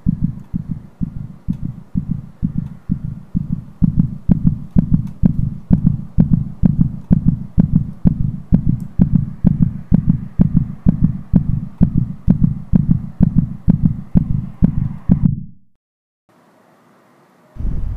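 Rapid, steady heartbeat thumping, about two and a half beats a second, that cuts off suddenly near the end. Wind noise starts just before the end.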